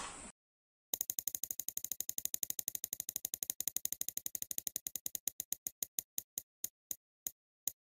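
Spinning prize-wheel sound effect: rapid ticks as the pointer clicks past the wheel's segments, starting about a second in at roughly ten a second and slowing steadily to a couple a second as the wheel comes to rest.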